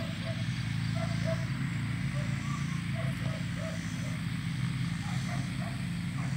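Outdoor pasture ambience: a steady low drone with many faint, short chirping calls scattered over it.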